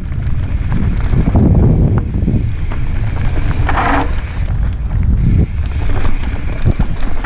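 Wind buffeting a helmet-mounted camera's microphone as a mountain bike rolls fast down a dirt singletrack, with tyre noise and scattered clicks and rattles from the bike. A brief, higher noise comes about four seconds in.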